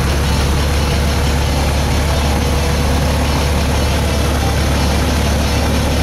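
Cessna 150 Aerobat's four-cylinder Continental O-200 engine and propeller idling, heard inside the cabin as a steady low drone.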